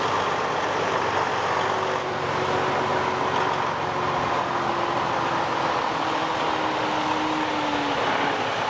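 Heavy-duty truck engine running steadily, one tone in it sinking slowly lower in pitch.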